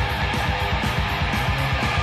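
Heavy metal band playing: distorted electric guitars over bass and a fast, steady drum beat.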